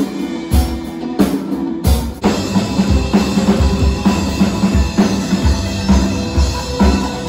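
Music with a drum kit keeping a regular beat under pitched instruments.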